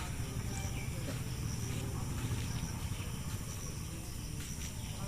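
Insects chirping steadily at a high pitch over a low, steady rumble.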